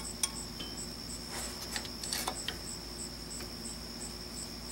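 A few scattered light metallic clicks as the self-adjuster cable of a Ford Bronco II rear drum brake is pulled up and let go, working the adjuster lever against the star-wheel adjuster. This is a check that the freshly installed self-adjusting mechanism moves freely. A steady high pulsing trill runs underneath.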